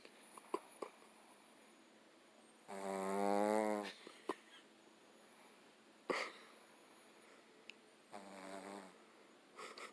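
Snoring: two long, buzzing snores about five seconds apart, the first lasting about a second, with a few short sharp clicks in between.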